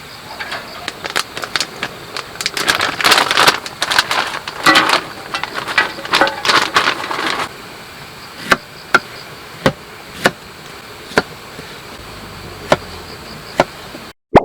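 Plastic food packaging crinkling and rustling in several bursts as meal-kit pouches are handled and opened. After that come single sharp knocks, about one a second, from utensils or a knife on a hard surface.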